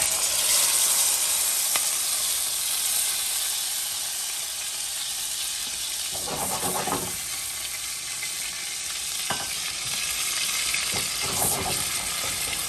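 Tikka-marinated chicken pieces sizzling in hot oil in a pan, loudest in the first second or two and then settling to a steady sizzle. Two short stirring noises come about six and eleven seconds in.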